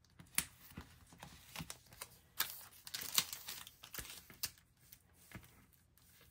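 Hands handling paper stickers and a clear plastic sheet: irregular crinkles, rustles and sharp taps like fingernails on paper. They come thickest over the first four and a half seconds and thin out after.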